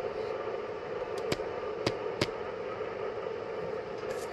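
Yaesu FT-710 ham radio transceiver receiving on the 10-metre band, its speaker giving a steady hiss of band noise with three sharp clicks a little over a second and around two seconds in. The owner blames the noise on interference from his home solar inverter.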